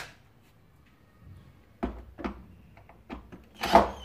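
A few light clicks and knocks of hard plastic being handled as a drill's Torx bit is moved between screws on a vacuum cleaner's housing, with a louder knock near the end.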